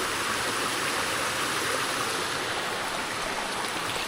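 Steady rush of flowing water from a mountain stream or waterfall, an even hiss with no breaks.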